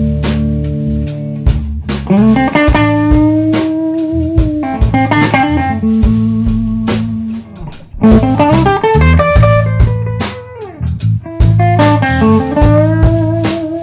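A background song with guitar and drums.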